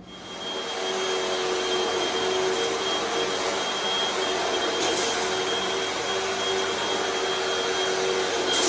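Upright vacuum cleaner running on bare concrete, picking up floor-patch scrapings before new carpet goes down. A steady rushing noise with a constant high whine comes up to full level within the first second.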